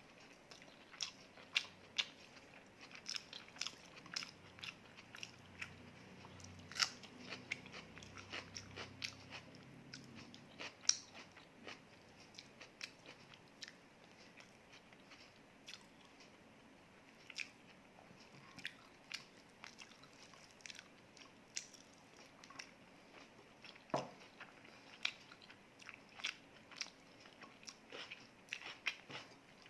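Close-miked eating sounds: a person chewing and biting food, with small irregular wet clicks and crunches throughout and one sharper click about two-thirds of the way through.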